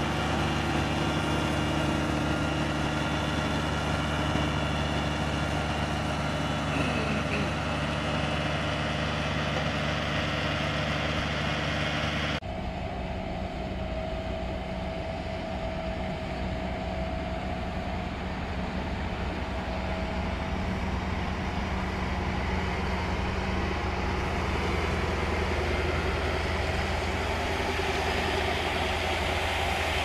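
Heavy truck engine running steadily. For the first twelve seconds it is the bitumen sprayer truck feeding hand-held spray lances. After an abrupt change it is a tipper truck with a chip spreader, running with a lower, even rumble.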